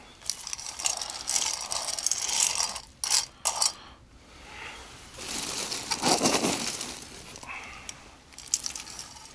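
Rustling, scraping and light clicking of small objects being handled, with a quick run of sharp clicks about three seconds in.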